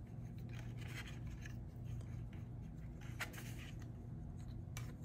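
Faint scratching and small clicks of an Allen key turning small hex screws into the metal plate of a plastic trolling-motor controller, over a steady low hum.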